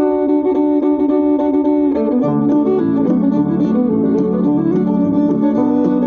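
Background music played on plucked strings, guitar-like, starting abruptly about at the outset and continuing at a steady level.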